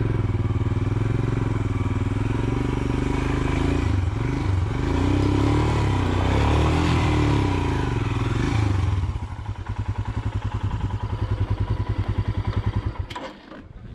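Royal Enfield Himalayan's single-cylinder engine revving under load as the motorcycle climbs a steep hill, its pitch rising and falling with the throttle. About nine seconds in it settles to a slower, even thumping at low revs, then drops away near the end.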